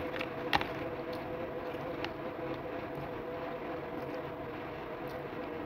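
A steady mechanical hum with two steady tones, with a sharp click about half a second in and a few fainter clicks later as food is picked from its box and eaten.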